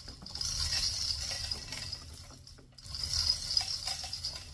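Manual chain hoist being worked hand over hand: the chain rattles and the ratchet clicks in two long pulls of about a second and a half each, the clicking showing that the load is being raised.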